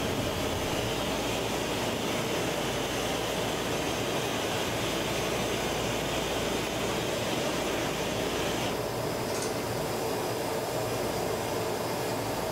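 A handheld gas torch's flame hissing steadily as it reheats a glowing glass gather on a punty rod, over the steady roar of the glass shop's burners. The higher hiss stops about nine seconds in, leaving the lower roar.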